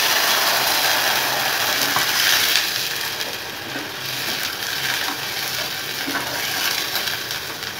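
Water poured into a saucepan of mango pieces frying in hot mustard oil, hissing and sizzling loudly, then easing to a softer sizzle as it settles. A spoon stirs the pan near the end.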